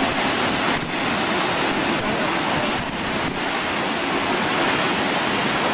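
Steady rush of Yosemite Falls' water pouring over the brink close by, an even, unbroken noise.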